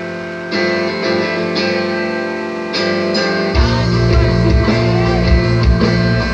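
Screamo band recording: guitar playing alone with no low end, then the full band comes in heavily about three and a half seconds in.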